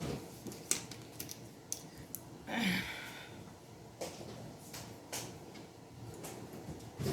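Kitchen handling noises: scattered light clicks and knocks of containers and utensils, with a short rattling scrape about two and a half seconds in.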